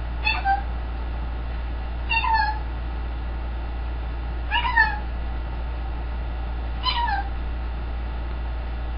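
Green-winged macaw giving four short calls, each falling in pitch at the end, about two seconds apart, over a steady low hum.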